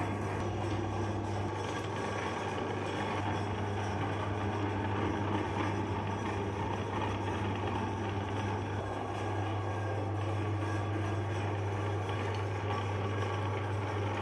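Electric meat grinder motor running steadily with a constant low hum and even grinding noise.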